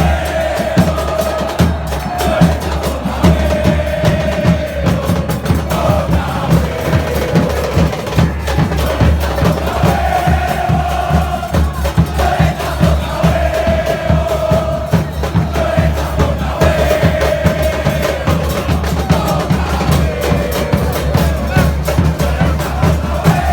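Football supporters chanting in unison, backed by bass drums and snare drums beating continuously.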